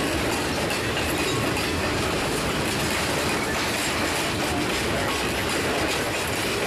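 Railroad freight cars rolling slowly over rough jointed branch-line track: a steady rumble of wheels on rail with faint clicking.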